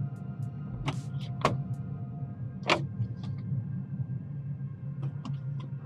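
Cabin noise inside a moving Toyota Corolla Hybrid: a steady low rumble, with irregular sharp clicks scattered through it, a few of them louder about one and a half and two and a half seconds in.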